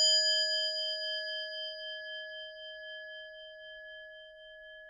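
A struck bell ringing out: one long ring of several clear tones, slowly fading away.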